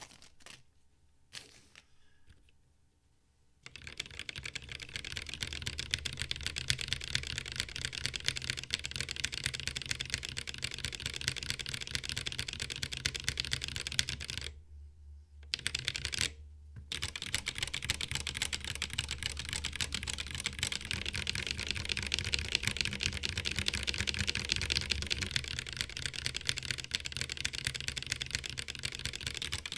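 Fast typing on a mechanical keyboard with Cherry MX Black Hyperglide linear switches that are lubed with Krytox 205g0, filmed, and fitted with lighter Sprit 63.5 g springs: a dense run of key clacks that starts about four seconds in, with a short pause about halfway through.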